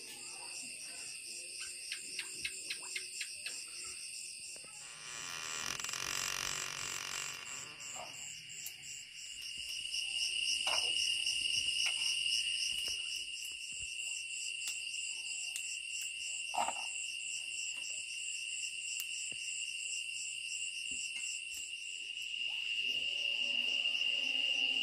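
Chorus of crickets and other insects: a steady high trill with a faster pulsing buzz above it. A few scattered knocks, and a short rustling hiss about five to seven seconds in.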